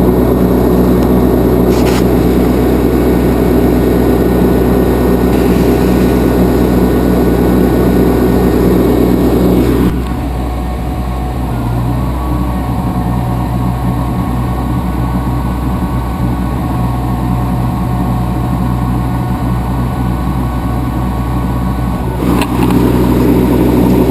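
Propane-fuelled engine of a Pelsue manhole generator and air compressor unit running steadily. About ten seconds in it gets quieter and the note changes, then it comes back up louder near the end.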